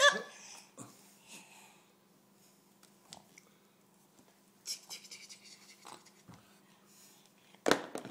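A baby with a bad cough, coughing and making short vocal sounds: a loud pitched sound at the start and a sharp, loud burst near the end.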